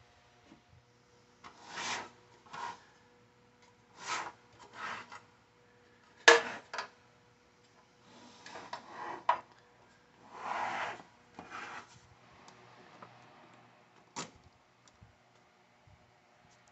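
Short scraping strokes, singly and in pairs, with a sharp knock about six seconds in and a brief click a little past the middle.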